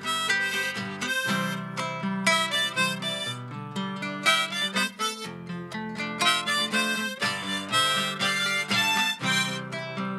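Harmonica played from a neck rack together with a strummed acoustic guitar: an instrumental passage of quick, rhythmic notes.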